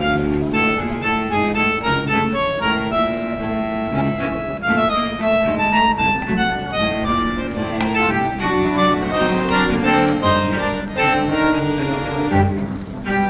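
Background music: an instrumental tune with a melody of held notes over a lower accompaniment.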